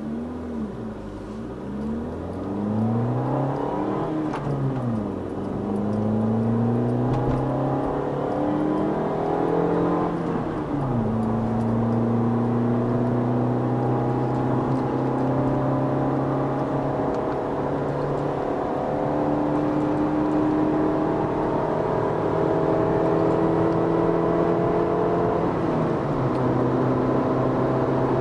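Car engine and exhaust fitted with Roncar Coyote Quattro 2Way+ aftermarket exhaust tips, running loud. The revs rise and fall a couple of times, then climb steadily as the car accelerates, with the pitch dropping at gear changes about ten seconds in and near the end.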